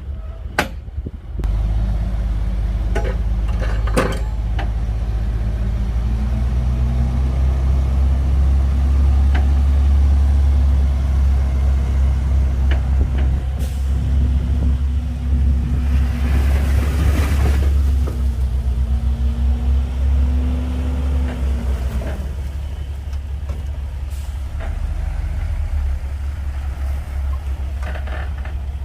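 Komatsu D58P bulldozer's diesel engine running under load, with sharp metal clanks in the first few seconds. The engine pitch rises a few seconds in and holds, and a rushing hiss lasts a couple of seconds midway. The engine settles back down about three-quarters of the way through.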